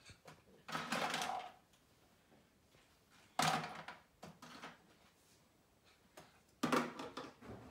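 Three knocks about three seconds apart.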